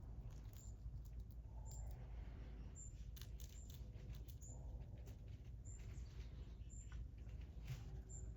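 Faint, very high short bird chirps repeating about once a second, with scattered light ticks, over a steady low outdoor rumble.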